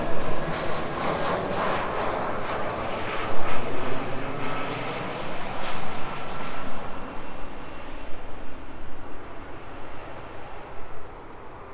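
Jet engines of a landing twin-engine airliner running at approach power: a loud, steady rush with a faint whine. It fades away as the plane touches down and rolls off down the runway.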